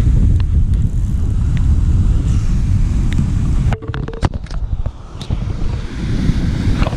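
Wind buffeting the microphone with a heavy low rumble, cutting out sharply a little past halfway, where a few light clicks are heard before the wind rises again.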